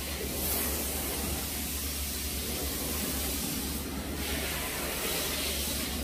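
Steady hiss with a constant low hum underneath: room background noise, with no distinct events.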